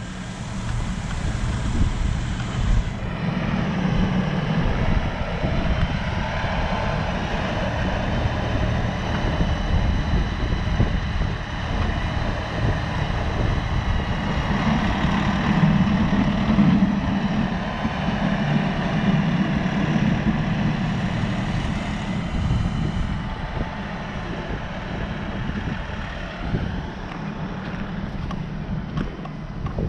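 LS MT342 compact tractor's diesel engine running steadily under load while working snow, its pitch rising and falling a little.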